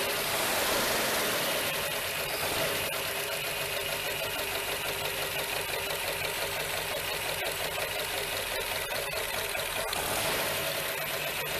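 Carbureted replacement engine in a 1966 Lincoln Continental idling steadily, running again after sitting about two years.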